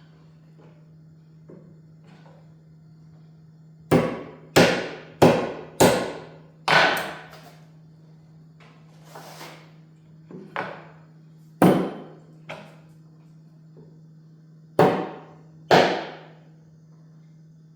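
Hammer blows on the saw's wooden table boards: a quick run of five strikes about four seconds in, then scattered single blows with pauses between them.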